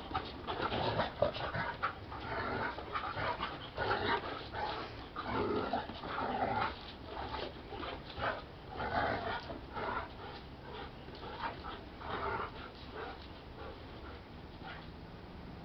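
Two dogs, a Belgian Malinois and a mixed-breed dog, barking and growling at each other in rough play. The bursts come fast and irregular and ease off about two seconds before the end.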